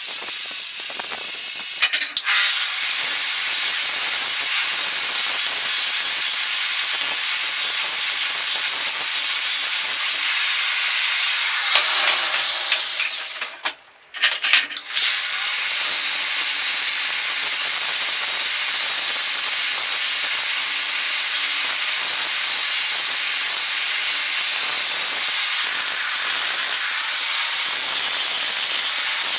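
Angle grinder running against a steel ball-peen hammer head clamped in a vise, stripping rust with a wire wheel; about twelve seconds in its pitch falls as it winds down and stops. It starts again a couple of seconds later and grinds on steadily with an abrasive disc.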